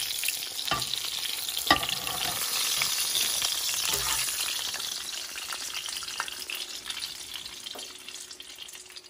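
Hot oil sizzling and crackling in a frying pan under a fried dough pie (plăcintă), with a few light knocks; the sizzle dies down toward the end.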